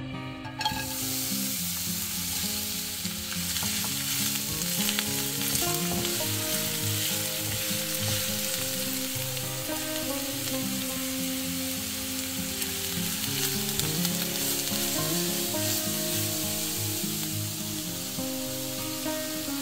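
Chopped onion sizzling in vegetable oil in a frying pan, the sizzle starting suddenly about half a second in and then holding steady. Grated carrot and shredded cabbage are tipped into the hot pan over it.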